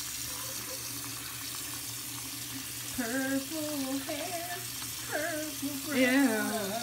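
Bathroom sink tap running, the water splashing over hands being rinsed under it. From about three seconds in a person's voice sounds in short wavering stretches, loudest about six seconds in.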